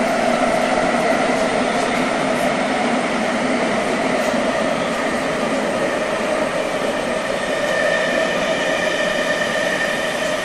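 Saitama Railway 2000 series subway train running through a tunnel, heard from inside the car: a steady rumble of wheels on rail under several held whining tones from its Mitsubishi IGBT VVVF traction drive.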